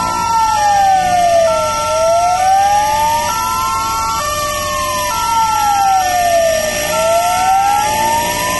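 Airport fire truck siren wailing, its pitch slowly rising and falling about once every five seconds. Short held tones step between a few pitches alongside it.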